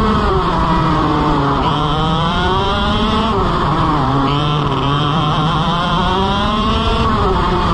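IAME X30 125cc two-stroke kart engine heard onboard, its pitch rising and falling several times as the driver lifts off for the corners and accelerates out of them. A sharp drop in revs comes right at the start.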